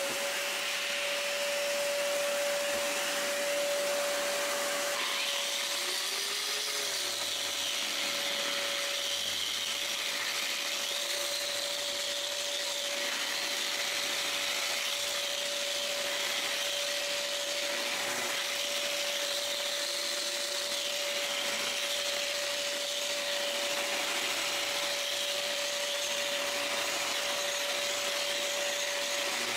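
A cheap Harbor Freight angle grinder grinding concrete while a Craftsman shop vac draws through its dust shroud. The motor whine holds one steady pitch over an even hiss of air.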